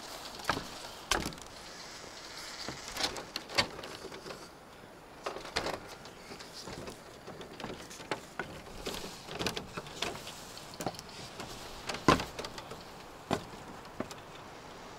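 Irregular knocks and clicks, a dozen or so spread unevenly, the loudest about twelve seconds in.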